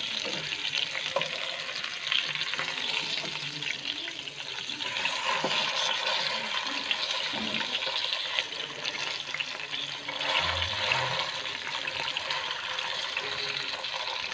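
Whole stuffed chicken sizzling steadily in hot oil in a nonstick pan as it is turned over with a wooden spatula and a slotted steel spoon, once the first side has fried. Light scrapes and clicks of the utensils sound through the sizzle, with a short low thud about ten seconds in.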